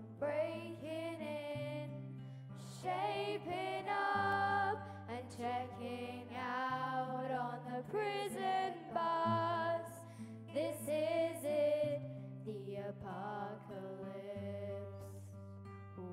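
Live song from the stage: singing over acoustic guitar accompaniment, with a low sustained bass note that shifts every two or three seconds.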